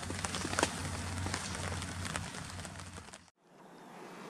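Rain easing off: scattered drops ticking over a steady hiss, with a low hum underneath. About three seconds in it cuts off sharply, leaving only a faint hiss.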